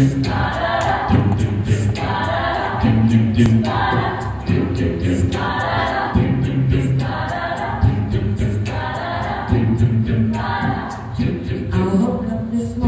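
Co-ed a cappella group singing unaccompanied: low bass notes stepping from pitch to pitch under blocks of sung chords that recur about every one and a half to two seconds, with crisp high ticks keeping the beat.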